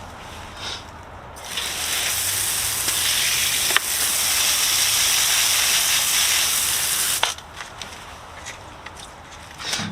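Garden hose nozzle spraying water in a steady hiss that starts about a second and a half in and cuts off suddenly after about six seconds, rinsing off a dirty bird feeder. Light clicks and knocks come before and after the spray.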